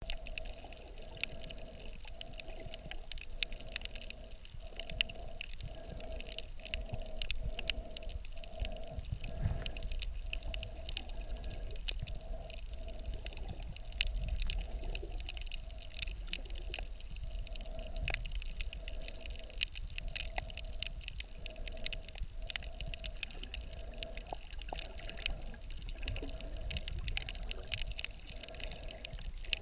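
Underwater sound picked up by a submerged camera while snorkeling over a shallow reef: a steady wash of water noise, many small crackling clicks, and a pulsing hum that repeats about one and a half times a second.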